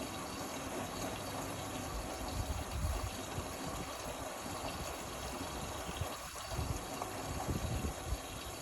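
Indesit Innex XWA 81252 washing machine mid-cycle, with a steady rush of water in the machine and irregular low rumbles underneath.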